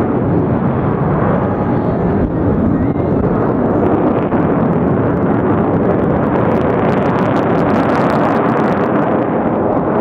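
Jet engine noise from a nine-ship formation of KAI T-50B jets flying overhead, a loud, steady rush with a patch of crackling about seven to nine seconds in.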